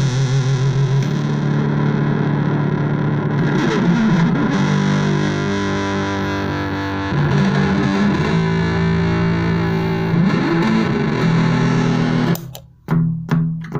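Electric guitar played through a MAD BOX Big Muff-style fuzz pedal: held, heavily distorted notes and chords with long sustain. Near the end the pedal's footswitch is pressed: the sound drops out briefly with a few clicks, and the guitar goes on with plucked notes.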